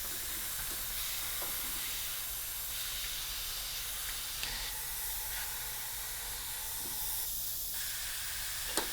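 Compressed air hissing steadily out of leaking fittings and seals on a newly plumbed pneumatic tool-changer air line, a sign that the fittings are not sealing. A single sharp click near the end.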